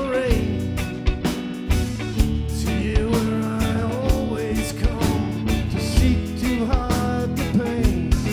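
A rock band playing an instrumental passage: a steady drum beat under bass and guitar, with a sliding lead melody line on top.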